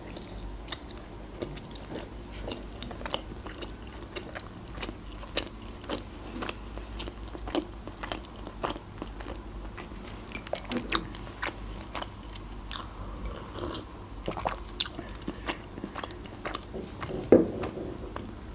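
A person chewing a mouthful of steamed manti dumpling: a steady run of soft, wet mouth clicks, with one sharper click about a second before the end.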